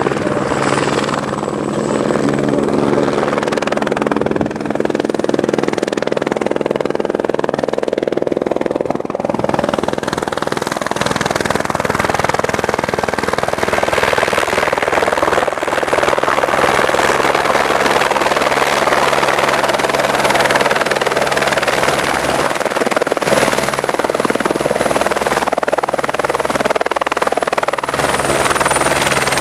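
Airbus AS350 single-engine helicopter flying in and landing, its rotor running steadily the whole time. From about ten seconds in a rushing hiss builds over the rotor sound as the helicopter comes close and sets down, its downwash blowing up snow.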